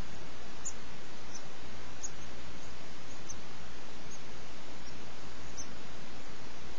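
Six-day-old European goldfinch nestlings giving short, very high begging peeps, scattered irregularly about once or twice a second, as the female feeds them. A steady hiss runs under them and is louder than the peeps.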